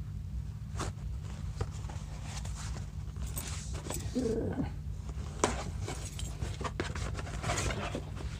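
Rustling and crinkling of mail packaging being opened by hand, with scattered taps and clicks and a short squeak about four seconds in, over a steady low hum.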